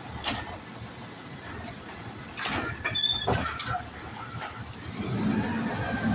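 Garbage truck's automated side-loader arm lowering an emptied wheeled cart, with several clanks and knocks as the cart is shaken and set back down over the truck's running engine. Near the end the engine grows louder as the truck pulls away.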